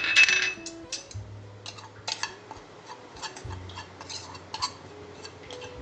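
A spoon scraping and clicking against a small non-stick pan as coriander powder is stirred and heated, after a brief rush of noise at the very start.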